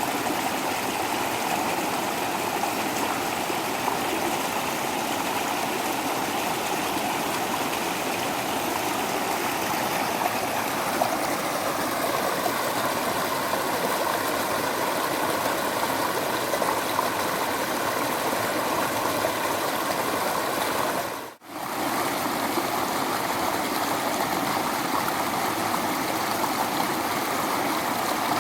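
Waterfall running steadily, an even rush of falling water that cuts out for a split second about three quarters of the way through.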